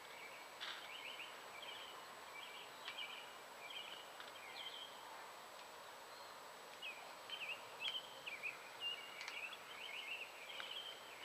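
Small birds chirping in quick bursts of short, high, sliding notes over a faint steady outdoor background noise, busiest in the second half.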